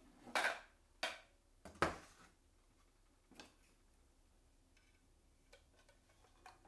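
A plywood saw guide with an aluminium rail and a circular saw knocking against a plywood workbench as they are set down: three sharp knocks in the first two seconds, then a single softer knock and a few faint taps.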